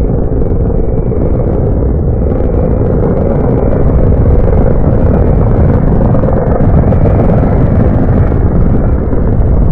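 Drag-racing cars running at full throttle down the strip: a loud, steady, rough rumble with no single crash impact standing out.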